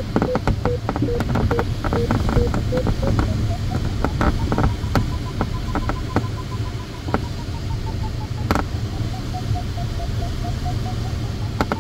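Glider's audio variometer beeping in a steady train, stepping from a low tone up to a higher one about three seconds in and easing down again later; the beeping signals lift. Under it runs the steady rush of airflow in the cockpit, with scattered sharp clicks.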